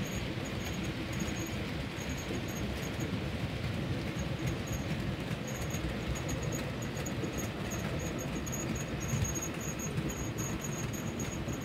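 A train of OO gauge model MGR coal hopper wagons rolling steadily along the track: a continuous low rumble of wheels on rail, with light, rapid high ticking running through it.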